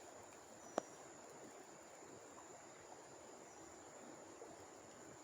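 Near silence, with a faint steady high-pitched whine and one sharp click just under a second in.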